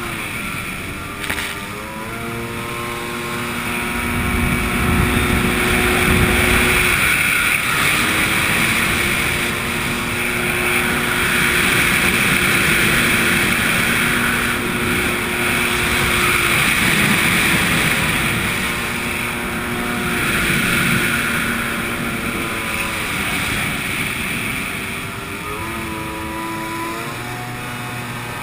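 Jet ski engine running at high revs: it rises in pitch about a second in, then holds with brief dips as the craft turns around the buoys, and the revs change again near the end. Water spray and wind rush run underneath the engine.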